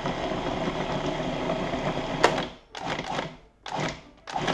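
Food processor motor running with pie-crust dough in the bowl. It stops a little past halfway with a click and then gives two short pulses. Its sound changes as the dough starts to gather into a ball around the blade, the sign that the dough is ready.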